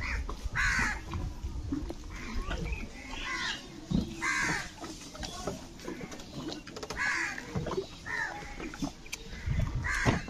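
Crows cawing repeatedly, short harsh caws coming every second or two.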